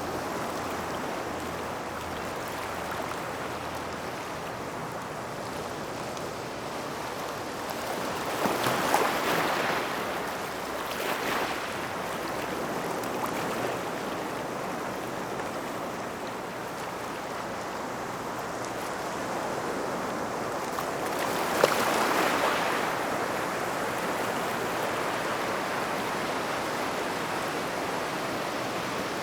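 Small waves washing up a gravel shoreline near rocks, a continuous wash with louder surges about a third of the way in and again about three-quarters through.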